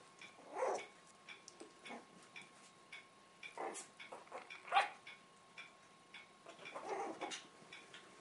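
Puppies playing, giving a few short yips and growls, the sharpest yip about five seconds in. A steady ticking, a little over two ticks a second, runs underneath.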